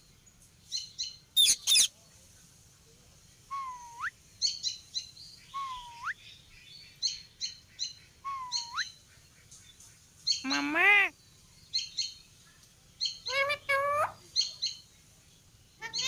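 Indian ringneck parakeets calling: a run of short high chirps and quick whistles that dip and then hook sharply upward, broken by louder squawks about one and a half, ten and a half and thirteen and a half seconds in.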